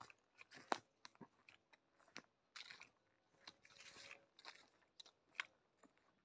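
Faint footsteps crunching on a dry dirt trail littered with leaves and twigs: irregular crunches and a few sharp clicks.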